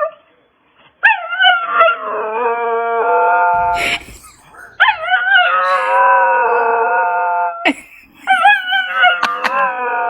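A dog howling in three long drawn-out calls, each wavering up at the start, then held and slowly falling in pitch.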